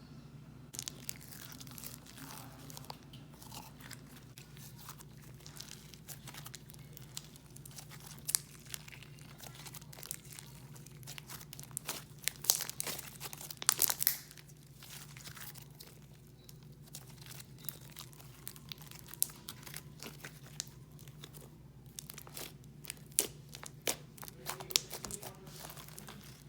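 Thick, glossy foam-bead slime being squished and stretched by hand, making a crunchy crackle with many sharp bubble pops. The pops come thickest about halfway through.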